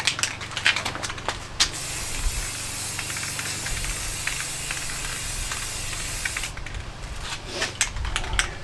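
Aerosol spray-paint can spraying one long hiss of about five seconds, misting a light coat of paint onto a rifle, with clicks and knocks of handling before and after it. Wind rumbles on the microphone.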